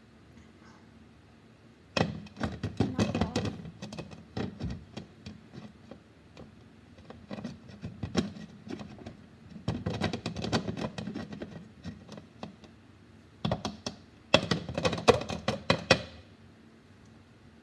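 A container and lid being handled over a cup: four bouts of rapid clicking and knocking, with quiet between them.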